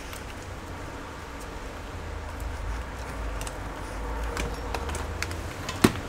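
Gloved hands handling and routing cables inside an open laptop chassis: light clicks and handling noise, a few clicks about four to five seconds in, and one sharp click just before the end, over a steady low hum.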